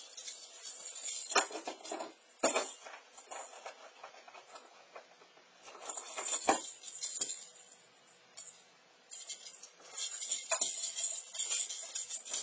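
A cat batting and chasing a jingle-bell ball toy: the bell jingles on and off, strongest near the end, with several knocks of the toy and paws on the floor.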